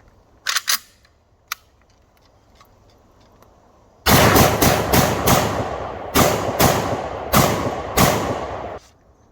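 Two sharp clicks, then an M1A SOCOM 16 semi-automatic .308 rifle firing a rapid string of about nine shots in under five seconds, each crack followed by ringing. The shots are PMC Bronze 147-grain rounds.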